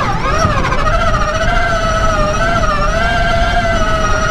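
Sierra Echo electric race car's drive motor and gear reduction whining steadily under power, the whine wavering slightly in pitch, over a low rumble of the car moving up a loose sandy track.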